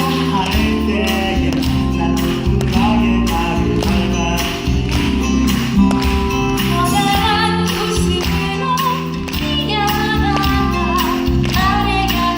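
Live musical-theatre song: a band playing with a steady beat, with singing.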